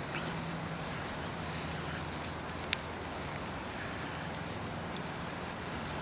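Cloth rubbing polish over a cloudy plastic car headlamp lens, a soft steady wiping over a low background hum. A single sharp click about halfway through.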